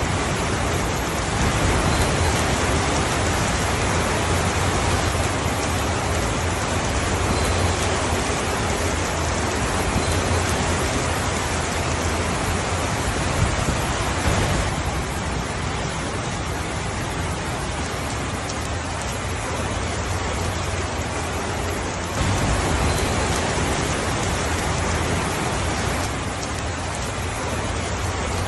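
Steady rain: a dense, even hiss with a low rumble underneath. The texture shifts abruptly a few times.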